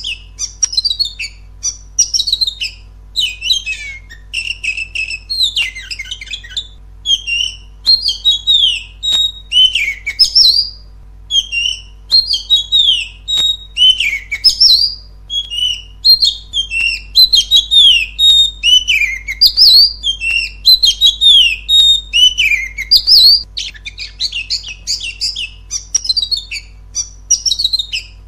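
Oriental magpie-robin (kacer) singing loudly and without pause: a fast, varied run of whistled phrases, rising and falling slurs, and harsher chattering notes, broken only by short gaps. It is the kind of full song played as a lure to stir other magpie-robins into singing.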